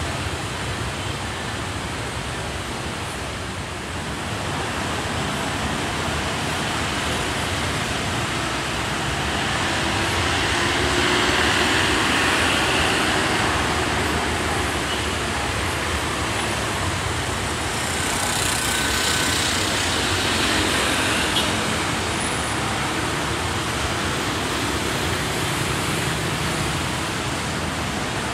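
Diesel locomotive hauling passenger coaches and rumbling as it slowly approaches over the station tracks, mixed with a steady wash of traffic and yard noise. The sound swells a little around the middle.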